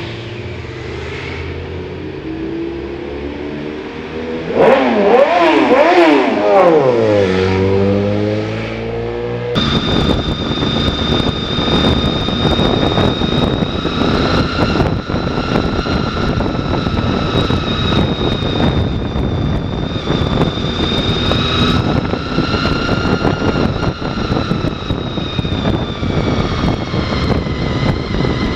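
Motorcycles riding past through an underpass, one engine's pitch rising and falling several times as it pulls away through the gears. About ten seconds in, the sound cuts to onboard a Honda VFR800 under way: its V4 engine running at a steady speed with a steady high whine over the rush of wind.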